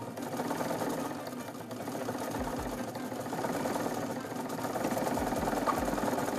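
Vintage Nelco sewing machine running under its electric motor, a steady mechanical whir, getting a little louder in the second half. The motor's sleeve bearing has just been oiled after being found dry.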